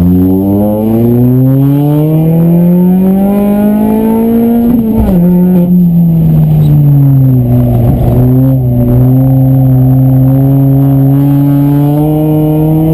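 Citroën DS3 R1 rally car's engine heard from inside the cabin, revving up steadily under acceleration for about five seconds, then dropping sharply at a lift or gear change, easing down, and pulling at fairly steady revs for the rest.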